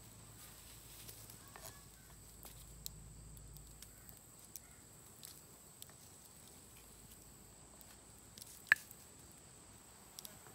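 Faint scattered clicks and light scraping from a wooden stick pushing a coarse wheat cake around on a hot stone slab by a campfire, with one sharp click near the end.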